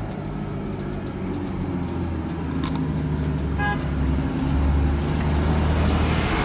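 Car engine running steadily, growing a little louder, with a short high-pitched beep a little past the middle.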